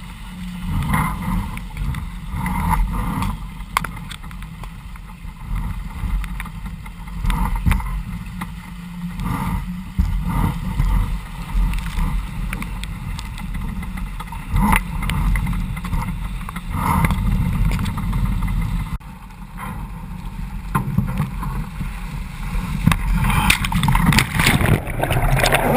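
Water rushing and splashing along the hull of a Vago sailing dinghy sailing fast, with irregular slaps of spray and waves over a steady low rumble. The rush grows louder near the end as the boat heels hard and the water surges up to the camera.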